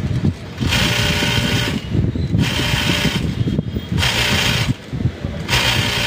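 Juki DDL-8800 industrial sewing machine running on its newly fitted servo motor in short spurts of about a second, four times, as the pedal is pressed and let go, with a steady high whir during each run.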